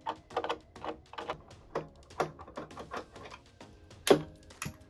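A long Phillips screwdriver turning screws in a plastic speaker housing, making a run of small clicks about three a second. Two louder knocks near the end as the speaker is handled.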